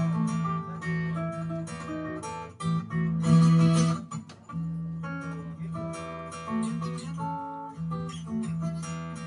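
Solo acoustic guitar playing an instrumental melody as separate plucked notes, with a louder strummed passage about three seconds in.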